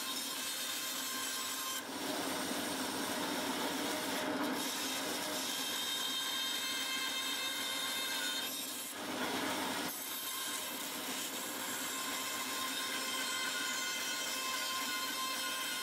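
Bandsaw running and cutting scrap wood: a steady motor hum under the noise of the blade in the wood, with brief changes in the cut about two seconds in and again around nine seconds.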